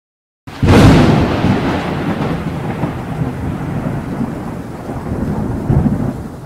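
Thunderclap: a sudden loud crack about half a second in, then a long rolling rumble that swells again near the end.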